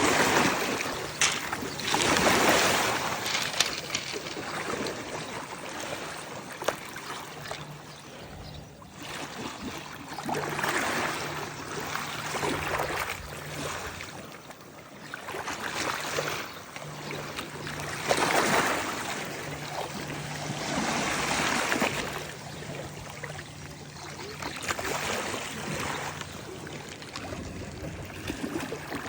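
Sea water washing in and draining back, each surge swelling up and fading every few seconds, the loudest about two seconds in and again around eighteen seconds in.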